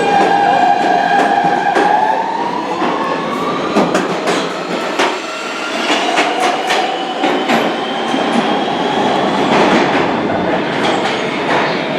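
New York City subway train running through the station, its motors whining with tones that rise in pitch about two to four seconds in and again later, as it speeds up. Wheels clatter over rail joints in a run of sharp clicks.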